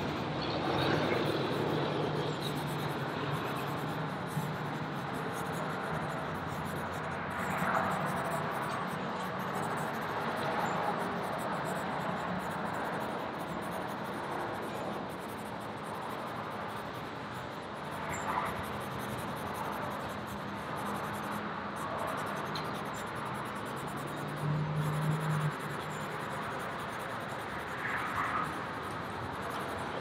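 Charcoal scratching and rubbing on sketch paper in intermittent strokes, over a faint low hum.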